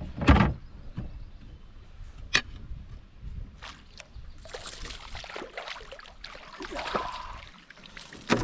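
Knocks and clatter in a canoe while a landed fish is handled: a loud knock right at the start, a few sharp clicks, then a few seconds of rustling and scraping in the second half.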